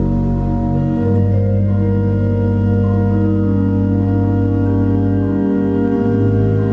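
Organ holding sustained chords, moving to a new chord about a second in and again near the end.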